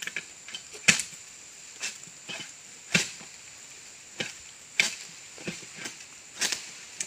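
A palm-harvesting sickle (egrek) on a long bamboo pole chopping at oil palm fronds and fruit stalks. It gives a series of sharp cutting knocks, one every half second to a second, with the heaviest strokes about one, three and five seconds in.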